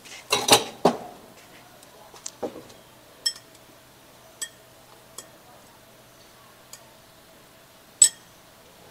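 Metal spoons clinking against ceramic bowls as toppings such as crushed peanuts are spooned into a bowl of noodles: a quick clatter of knocks in the first second, then a few separate sharp, ringing clinks, the loudest near the end.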